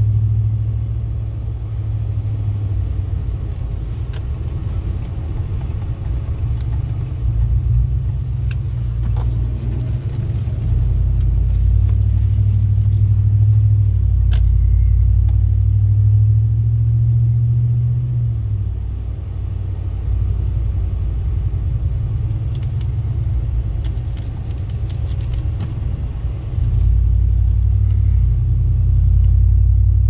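Low grinding rumble inside a moving pickup truck's cab, swelling and fading over several seconds, with a few faint ticks.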